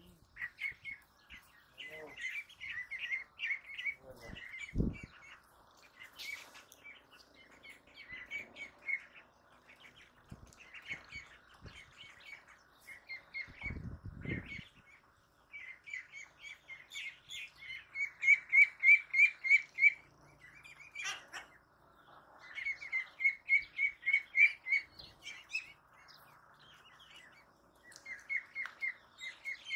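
Young ducklings peeping: runs of short, high, rapid chirps, several a second, coming and going in bursts, loudest about two-thirds of the way through. A few low thumps, one about five seconds in and another around the middle.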